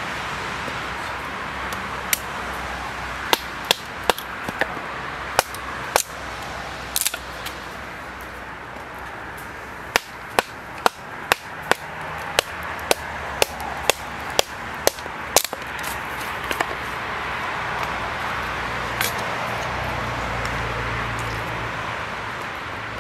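Hammer blows on steel at the anvil while forging a knife: sharp ringing strikes, scattered at first, then a steady run of about two a second, thinning out near the end, over a steady rushing hiss.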